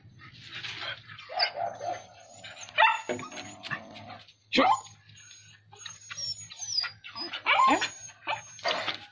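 A dog and a Bornean wild cat fighting at close range: growling and snarling broken by several loud, sharp cries that fall in pitch.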